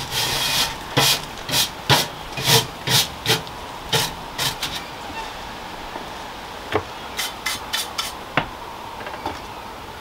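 Garden hand trowel scraping in a quick run of short strokes, about two a second, for the first few seconds. A few lighter scrapes or knocks follow near the end.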